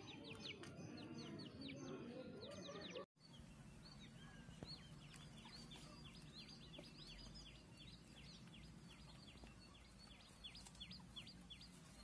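Faint, rapid bird chirping: many short, high, falling chirps, several a second, with low chicken clucking underneath. The sound drops out briefly about three seconds in.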